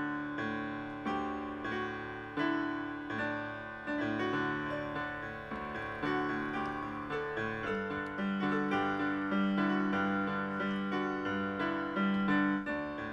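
Background solo piano music, a melody of single notes and chords struck about once or twice a second.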